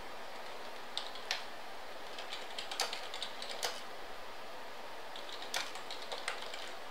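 Typing on a computer keyboard: scattered keystroke clicks, a few at a time with pauses between, over a steady background hiss.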